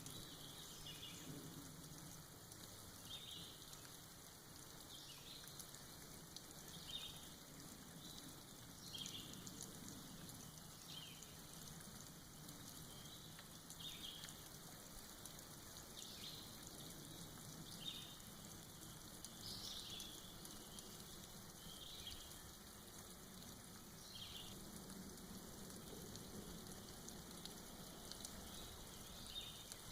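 Soft forest rain, a faint steady patter of drops falling off moss. A bird's short, high chirps repeat every second or two.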